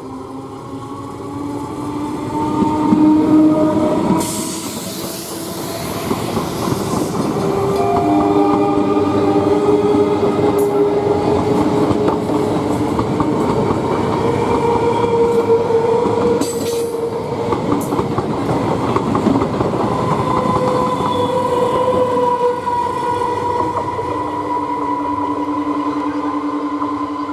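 Old-model EMU electric local train passing close at speed: wheels clattering over the rails under a dense rumble, with steady whining tones, some sliding in pitch. It is loudest about three seconds in, and a burst of hiss follows.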